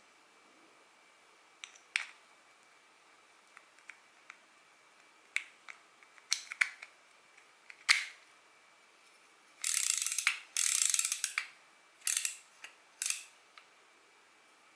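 Small mechanical clicks and taps from a Daiwa spinning reel being handled. About two-thirds of the way through come two quick runs of rapid ratcheting clicks, each under a second, then a couple of shorter ones.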